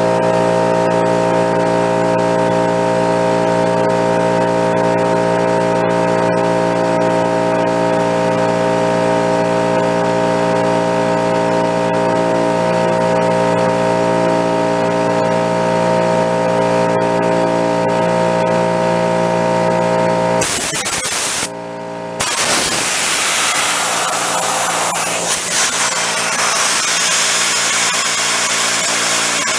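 Small two-gallon oil-lubricated piston air compressor running steadily while it fills an air tank. About twenty seconds in, a loud rush of compressed air hisses through the inline oil/water separator as the hose is pulled off, breaking off for a moment, then going on until near the end.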